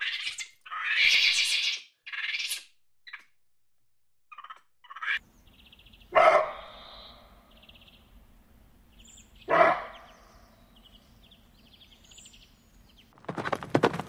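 Macaques giving a few shrill screeching calls, then a deer barking twice, harshly and about three seconds apart, with small birds chirping faintly in between. Near the end, a herd of horses' hooves starts clattering at a gallop.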